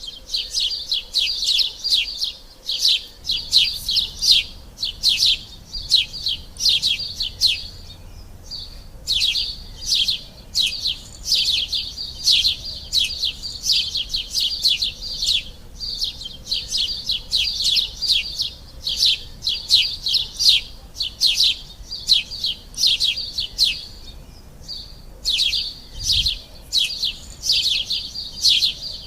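Sparrows chirping: a dense, rapid run of short, high chirps, several a second, with two brief pauses.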